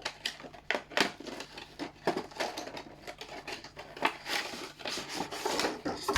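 Batteries and other small hard items clicking and clattering as they are rummaged through by hand, with irregular sharp clicks that grow busier after about two seconds.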